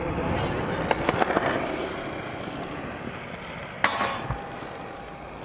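Kick scooter wheels rolling over concrete, fading as the rider moves away, with one sharp clack about four seconds in.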